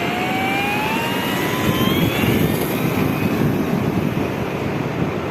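Radio-controlled model Cessna 150's motor and propeller whining, rising steadily in pitch over the first two seconds or so as the throttle opens for the takeoff run, over a steady rush of wind noise.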